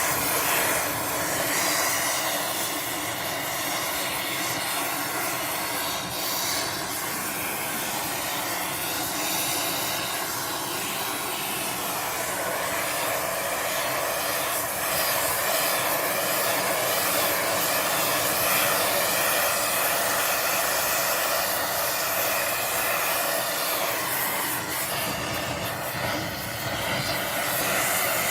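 Hand torch flame playing over the cleaned intake manifold, a steady hiss, drying the metal and burning off the last residue before primer.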